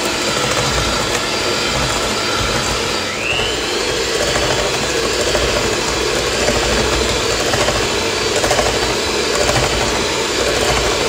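Cuisinart electric hand mixer running steadily, its wire beaters whisking eggs into butter and sugar in a stainless steel bowl, with a short rising whine about three seconds in.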